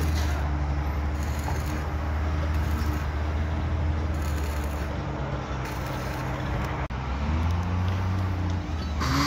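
Steady low drone of a running engine on a construction site, cutting out for an instant about seven seconds in.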